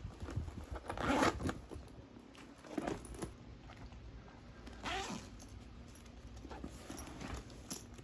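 Zipper of a black leather shoulder bag being pulled open, among a few short rustles of the bags being handled.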